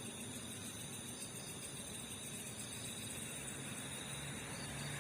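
Night insects, crickets among them, chirring steadily in several high pitches over a faint hiss.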